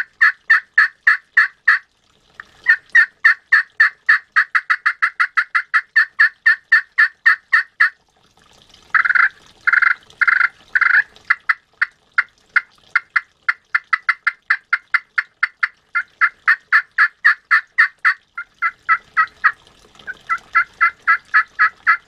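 Corian pot turkey call played with a light striker, giving long runs of short, high turkey notes, about five a second, broken by brief pauses. About nine seconds in come four longer, louder notes.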